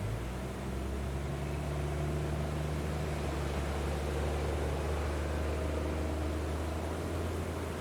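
A low, steady mechanical drone over a rush of wind noise. The drone starts suddenly and eases off near the end.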